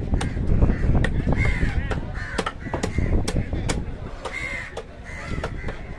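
A heavy knife chopping fish on a wooden block, giving sharp knocks every fraction of a second, while crows caw several times.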